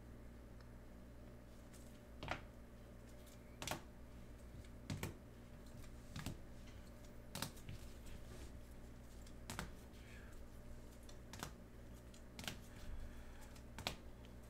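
Faint, sharp clicks about once a second, over a low steady hum.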